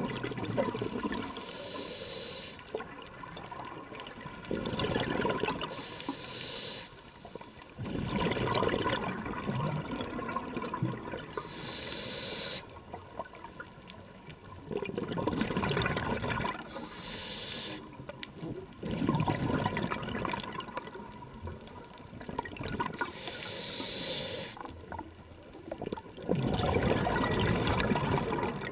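A scuba diver breathing through an open-circuit regulator, heard underwater: bubbly bursts of exhaled air leave the exhaust every few seconds, with a shorter hiss of inhaled air through the regulator between some of them.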